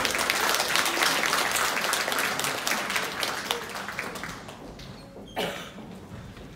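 Audience applauding, the clapping thinning and fading away over about four seconds. A single brief thump sounds about five seconds in.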